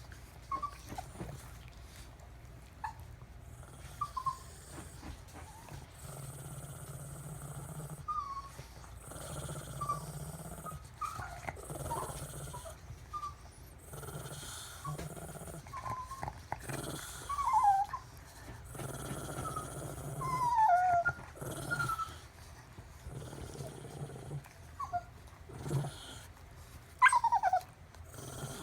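Shih tzu dogs making short, high-pitched whining calls, many sliding down in pitch, scattered throughout and louder in the second half.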